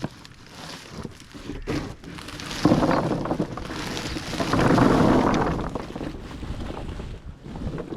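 Animals crunching and chewing sugarcane close to the microphone: a dense crunching, rustling noise that swells about three seconds in and is loudest around five seconds in.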